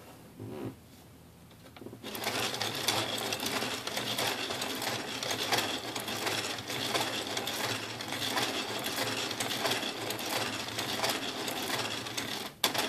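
A hand-cranked 3D-printed plastic fish automaton running, its gears and cam-following rods making a rapid, rough clattering. It starts about two seconds in and stops just before the end. The roughness comes from the layer steps left by the 3D printing process.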